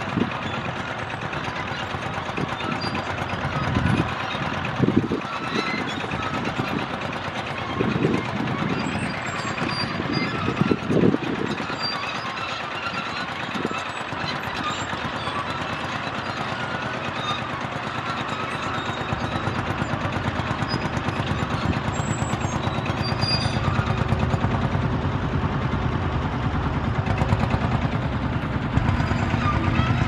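Vintage farm tractor engines running steadily while pulling ploughs. There are several low thumps in the first half, and a deeper engine hum that grows louder in the second half.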